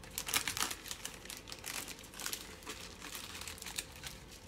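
Small plastic bags of diamond painting drills crinkling as they are handled and shifted on the table, in quick, irregular crackles.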